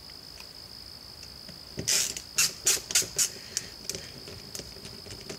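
Ratcheting screwdriver clicking: a quick run of five or six sharp clicks, then a few fainter ticks, as it works a Security Torx T15 screw on the back of a cordless impact driver.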